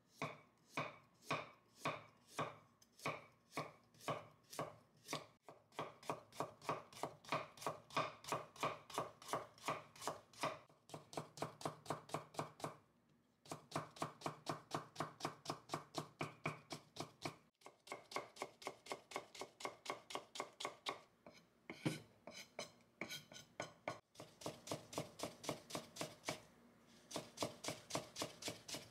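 Global Pro chef's knife chopping carrot on a wooden cutting board, knocking the board with each stroke. The strokes are steady and rhythmic, about two a second at first and then quicker, with a few brief pauses as the carrot is cut into strips and then minced fine.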